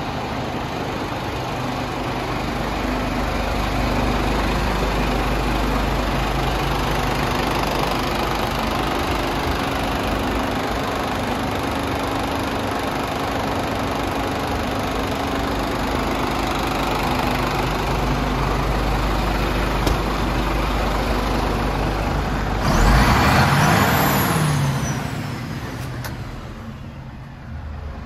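Scania R420's 420 bhp turbocharged diesel engine idling steadily. Toward the end there is a loud hiss that fades over about two seconds.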